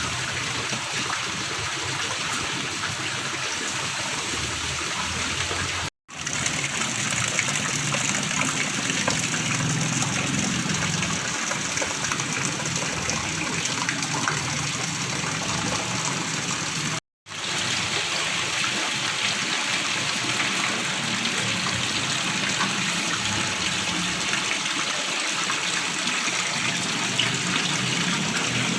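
Shallow stream gurgling and trickling steadily over stones, a continuous rush of running water. It cuts to silence twice, briefly, about six and seventeen seconds in.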